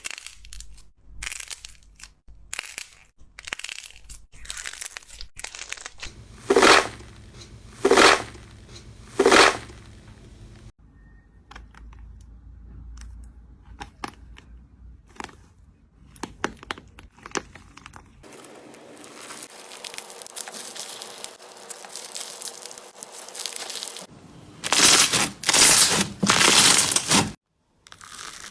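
Slime being pressed and pulled by hand, making crackling, crunching and tearing sounds. The texture changes abruptly several times, with three loud squeezes a quarter of the way in and three more near the end.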